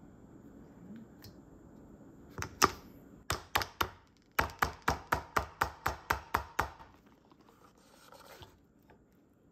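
Plastic takeout container held upside down over a stainless steel pot, rapped by hand to loosen the stew inside: a few scattered knocks, then a quick, even run of about ten sharp taps, around four a second.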